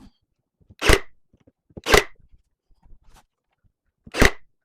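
A brad nailer firing three times, sharp single cracks about a second in, about two seconds in and near the end, driving brads into a wooden furniture leg and skirting, with faint small knocks of wood being handled between shots.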